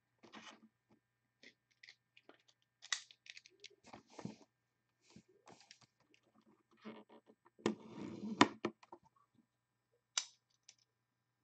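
Cardboard box and packaging handled and opened by hand: scattered light clicks and rustles, with a longer, louder rustle about eight seconds in.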